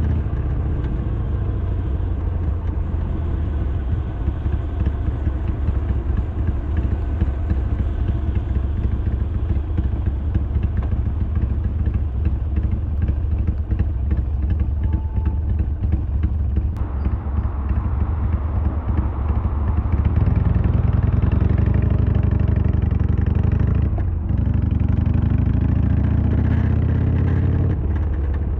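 Harley-Davidson Sportster 1200's air-cooled V-twin running under way, with a choppy rattle over the engine note; the owner is hunting this rattle and suspects the side stand. About twenty seconds in the engine pulls harder and its pitch climbs twice, broken by a short drop like a gear change.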